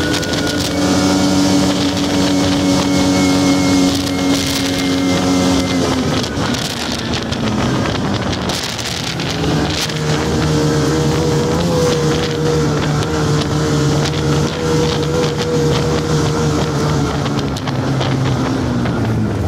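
Ski-Doo snowmobile engine running under way, with wind buffeting the microphone. The engine note holds steady, drops off about six seconds in, comes back steady at a higher pitch from about ten seconds, and eases off again near the end.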